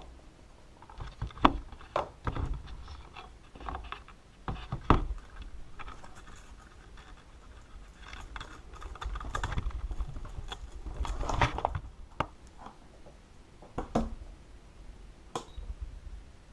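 Hand handling noise from wires, plug connectors and a small plastic box being fitted onto a wooden frame: irregular clicks and taps with some rustling. No motor or servo is running.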